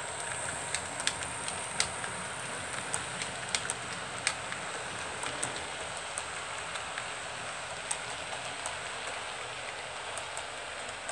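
ACME TEE model train running on the layout track: a steady hiss with irregular light clicks, more frequent in the first half.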